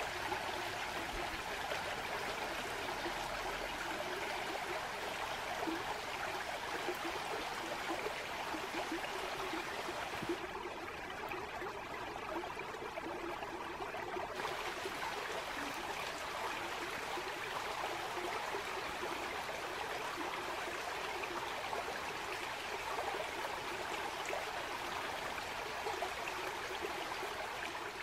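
Woodland stream flowing steadily.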